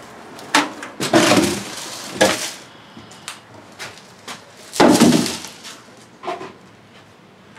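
Hard objects being handled and tossed around: a run of irregular knocks and clatters, the loudest cluster about five seconds in.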